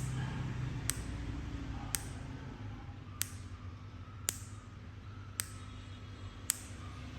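Sharp mouth clicks in a steady rhythm, about one a second, seven in all, over a low steady hum.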